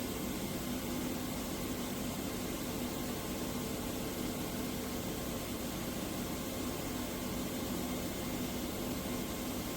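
Steady machine hum with an even hiss over it, the sound of workshop machinery running idle with no cutting.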